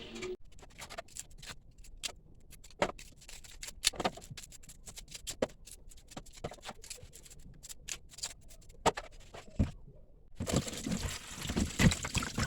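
Kitchen food-preparation sounds: scattered light clicks and taps, then a denser, louder stretch of scraping and rustling from about ten seconds in.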